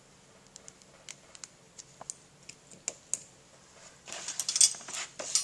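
Small metallic clicks as a snap ring is fitted into a stainless steel pump housing with snap ring pliers, a few scattered ticks at first, then a louder, denser clatter of metal tool and parts being handled near the end.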